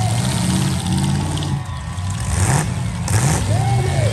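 Several destruction derby cars' engines running and revving at once, their pitches rising and falling, with two short bursts of noise a little past halfway.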